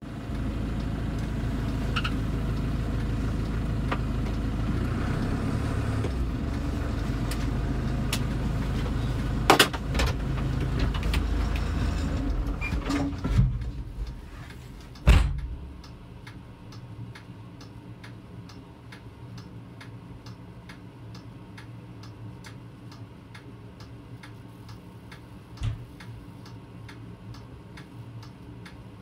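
Kubota Grand L4760 tractor's diesel engine and front snowblower running, heard from inside the cab, with a few sharp clunks. About halfway through the engine drops to a much quieter idle, and a steady regular ticking carries on over it.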